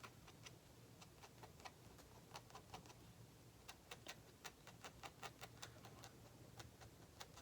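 Faint, sharp ticks of a pen nib on drawing paper as short hatching strokes are drawn, coming irregularly in little clusters of a few per second.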